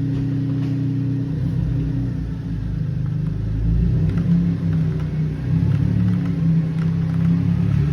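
Car engine running. The pitch holds steady at first, then rises and falls as the revs change, from about a second and a half in.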